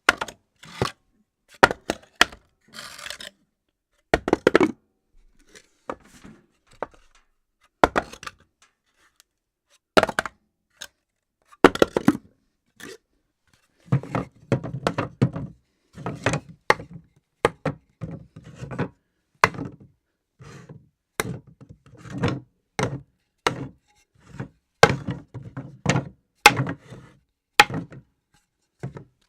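A long series of objects being dropped, each landing with a sharp knock or thud and a short clatter, separated by brief silences. The drops come sparsely at first and follow each other more closely from about halfway on.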